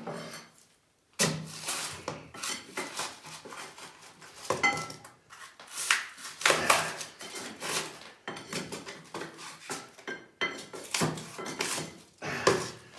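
Irregular scraping, knocking and clinking of hard pieces as a broken sewer pipe and rubble in a cellar floor are worked loose by hand.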